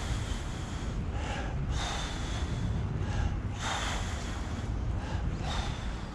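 A person breathing loudly and close to the microphone, in and out about every two seconds. Underneath is a steady low rumble from the moving electric wheelchair.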